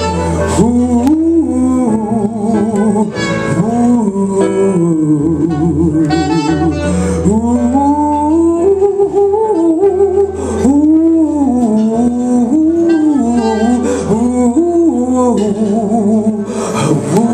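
Live music: a female singer's wordless vocal runs, gliding up and down with wide vibrato, over band accompaniment.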